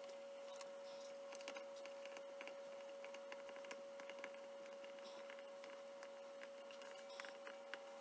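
Faint, scattered light clicks and taps over a steady high-pitched hum.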